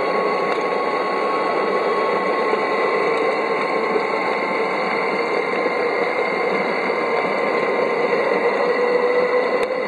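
Electric drive of a 5-inch gauge garden railway double-header running along the track: a steady motor-and-gear whine over the even rolling noise of wheels on the rails, the whine pitch lifting slightly near the end.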